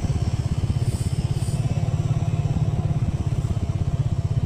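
Small motorbike engine running steadily, heard as a low, rapid, even pulsing.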